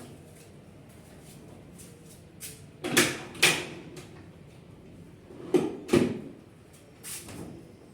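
Storage compartments of a wall-bed unit being opened and shut: two pairs of sharp knocks about three and six seconds in, and a lighter knock near the end.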